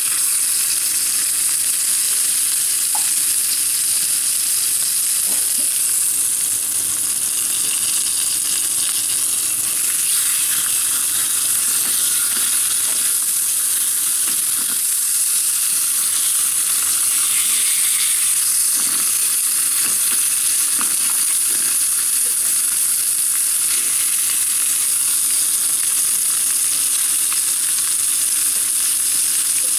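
Rump steaks searing in a hot frying pan, a steady sizzle of meat, fat and oil.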